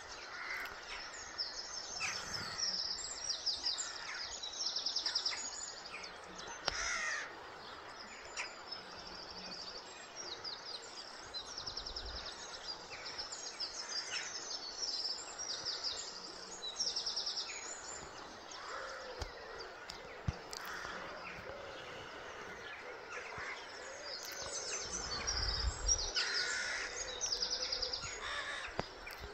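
Several birds singing, with quick high trills repeated many times over and a few harsher, lower calls now and then.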